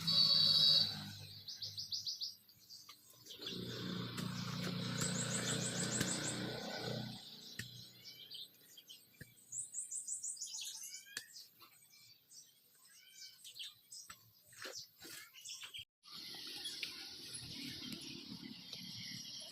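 Small birds chirping and trilling over and over, with quick rising and falling notes. An engine hums low for a few seconds early on.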